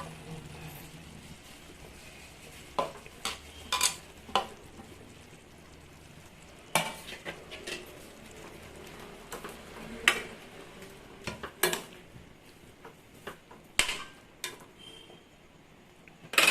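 A spoon stirring onions into a pan of cooking tomatoes, knocking and scraping against the pan at irregular intervals, over a low sizzle of the cooking.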